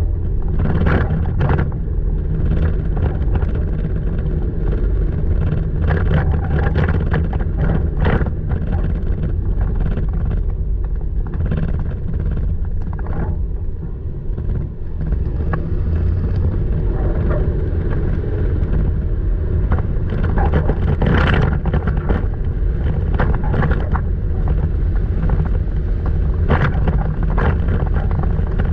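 Toyota Tacoma driving slowly over a rough dirt trail: a steady low rumble from the engine and tyres, with frequent squeaks and sharp knocks from the truck over the bumps.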